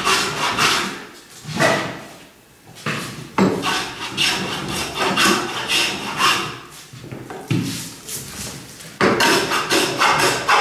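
Metal bench plane shaving a wooden board in a series of strokes, each a dry rasping hiss as the iron takes a light cut. There are pauses about two seconds in and again from about seven to nine seconds, then quicker strokes near the end.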